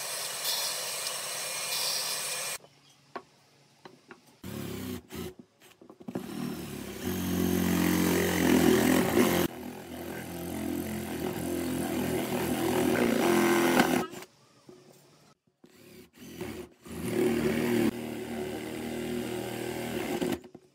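Band saw cutting through a wooden board for about two and a half seconds. After a pause, an electric drill with a spade bit bores into wood in two long runs separated by a brief stop.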